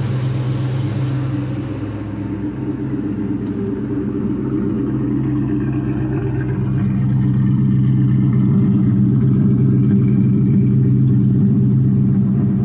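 Freshly built Ford 4.6-litre DOHC V8 (a 2001 Cobra engine with Cobra crank and SVT rods) idling steadily on its first full run. The idle dips slightly about two seconds in, then grows louder as the exhaust at the tail comes close.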